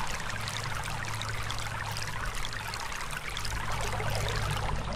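Shallow stream running over a gravel and stone bed: a steady trickling, babbling wash of water, with a steady low hum underneath.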